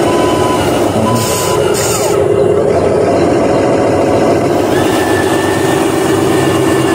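Simulated diesel truck engine sound from an RC dump truck, running steadily, with two short high hisses a little after a second in.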